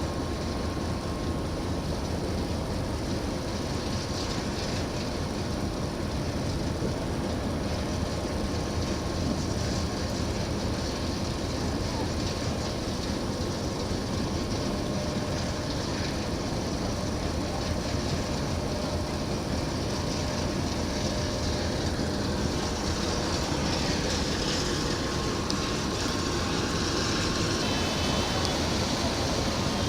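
Steady, unbroken rumbling machinery noise with a rushing hiss over it, typical of a ship under way.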